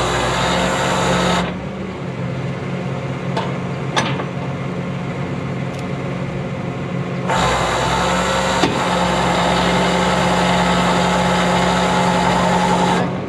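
Vehicle engine running with a steady hum, and loud rushing noise that starts and stops abruptly, for about the first second and a half and again from about seven seconds in until near the end. A few sharp clicks come between.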